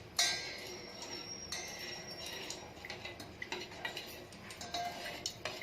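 A metal spoon clinking and scraping in a small pan as camphor is stirred into warm coconut oil to melt. A sharp clink comes just after the start with a short metallic ring, followed by scattered light ticks and clinks.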